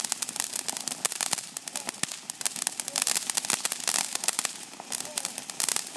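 Ground fountain firework spraying sparks, giving a dense, steady crackle of many small sharp pops. It eases briefly about four and a half seconds in, then picks up again.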